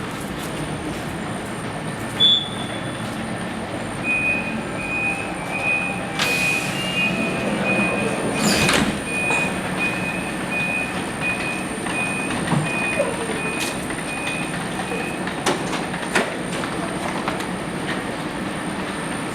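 A train standing at a station platform, its door warning beeping steadily at a high pitch about twice a second for around eleven seconds. A loud hiss of air comes in the middle, and a few sharp knocks follow near the end, over the steady hum of the train.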